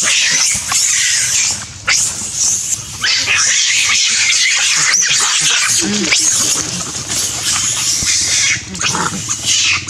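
Macaques screaming during a fight: harsh, shrill screeches that run almost without a break, dropping off briefly a few times.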